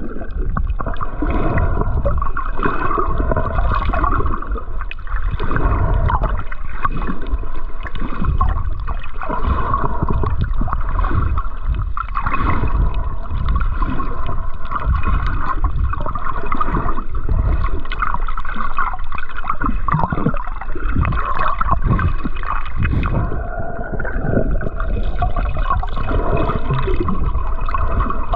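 Water gurgling and sloshing over the microphone, the muffled sound of a camera held underwater. It keeps going without a break.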